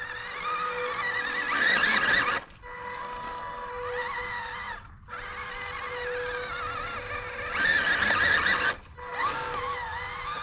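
Electric motor and gearbox of an MN82 1:12-scale RC pickup whining as it drives through wet grass. The pitch wavers up and down with the throttle over a steady high tone, louder in two stretches, and it cuts out briefly three times.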